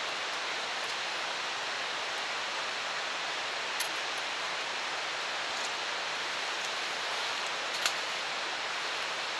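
Steady rushing outdoor background noise, with two single sharp clicks about four and eight seconds in.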